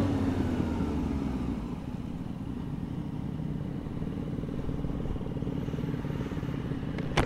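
Motorcycle engine running at a steady pace while riding, a low rumble with a steady hum, easing slightly after about two seconds. A short sharp click comes right at the end.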